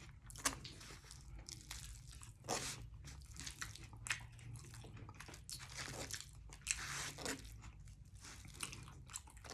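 Person chewing a mouthful of liver and rice close to the microphone: soft, irregular wet mouth clicks and smacks.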